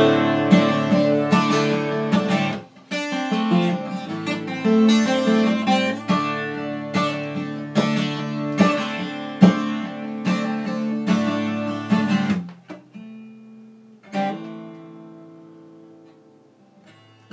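Acoustic guitar strumming chords in an instrumental break. About twelve seconds in, the strumming thins to a few single chords left to ring and fade away.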